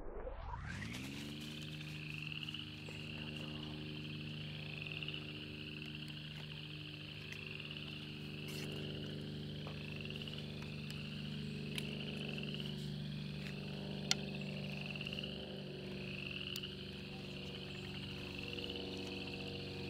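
A frog calling over and over, short rising chirps at about one and a half a second, over a steady low hum. There is one sharp click about fourteen seconds in.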